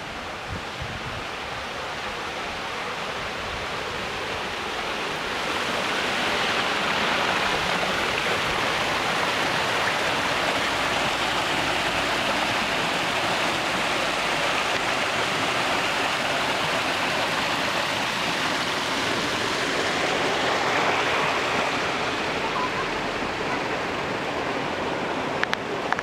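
Small garden waterfall cascading down over rocks: a steady rush of falling water that grows louder about five seconds in and eases slightly near the end.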